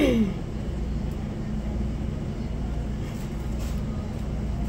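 Steady low background hum throughout, with a short falling voice-like sound at the very start and a few faint ticks a little after the middle.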